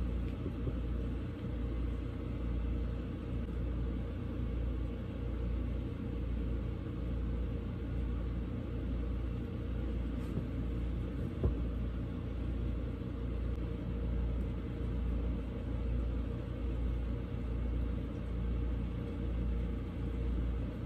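Steady low rumble and hum with a slow throb about once a second, and one sharp click about halfway through.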